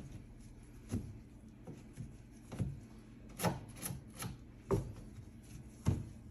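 A cleaning rag rubbing and scrubbing over a microwave's surfaces, in irregular strokes with a few light knocks.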